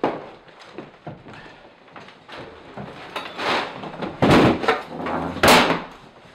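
Clatter and rustling of people carrying film gear and a plastic tarp and moving folding chairs around a table, with louder thumps and scrapes about four and five and a half seconds in.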